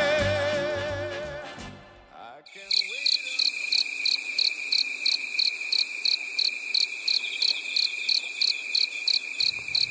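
A song fades out over the first two seconds, then a crickets' night-time sound effect takes over: a steady high trill with regular chirps several times a second.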